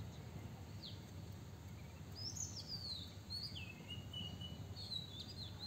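A bird calling: a single short falling whistle about a second in, then from about two seconds in a string of quick sliding, mostly falling whistled notes, over a low steady rumble of outdoor background noise.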